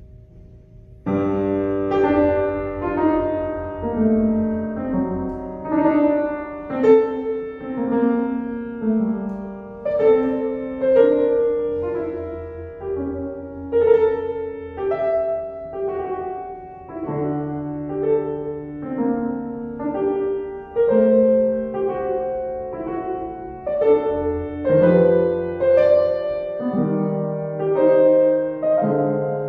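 Upright piano played solo, a classical piece with several notes sounding together. It begins about a second in, after faint room tone.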